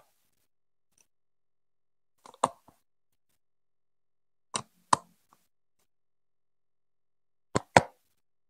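Plastic Lego Duplo pieces being set and pressed onto a studded baseplate: three pairs of sharp clicks, roughly two and a half seconds apart, with silence between.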